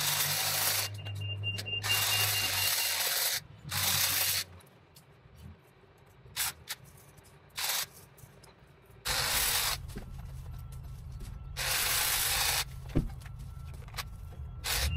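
Kress cordless pole hedge trimmer cutting into a hedge in a run of short bursts: harsh hissing spells as the blades go through the branches, over a low motor hum, with quieter pauses between cuts.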